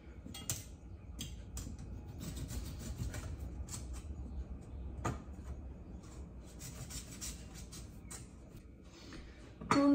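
Long knife sawing through a frozen chocolate cake layer, its blade held in the slots of a stainless steel cake-slicing ring: repeated scratchy rasping strokes with a couple of sharp clicks.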